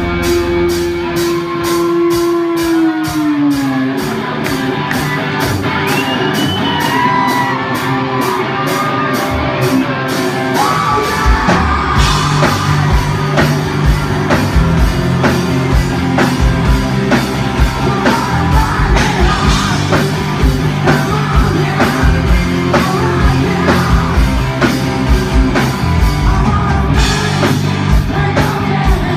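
Rock band playing live, loud: a held note slides down about four seconds in over a fast, steady cymbal ticking, then the full band with drums and bass comes in about eleven seconds in, with a singer's voice over it.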